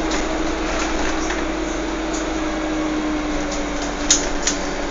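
Steady running hum of a vehicle, with a single tone that sinks slowly, and two short sharp clicks a little before the end.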